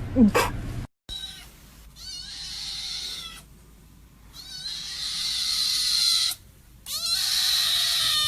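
A short falling cry right at the start, then a cat hissing: several long hisses of a second or two each, with short pauses between.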